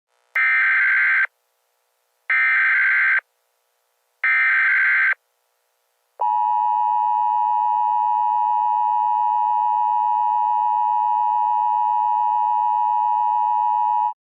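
Emergency Alert System tones: three harsh data bursts of the SAME header, each about a second long and a second apart, then a steady attention tone held for about eight seconds, announcing the start of an alert.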